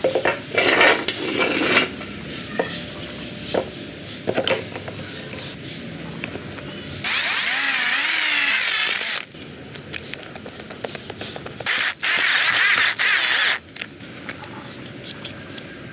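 A small power tool runs in two bursts of about two seconds each, a high whir that wavers in pitch, with clicks and knocks of handling parts before and between them.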